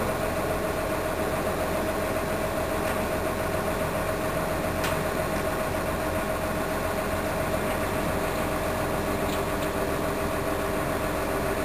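Mobile crane's diesel engine running steadily under load as it lowers a heavy steel cofferdam, an even hum with a steady tone.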